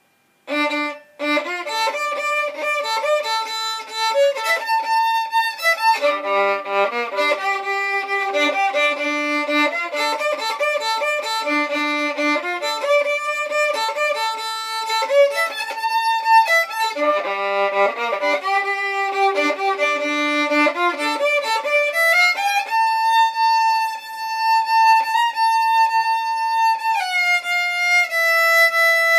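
Violin bowed as a solo melody: after a brief pause it plays a steady run of notes, some down on the lowest string. Near the end it holds one long note, then steps down to a lower held note.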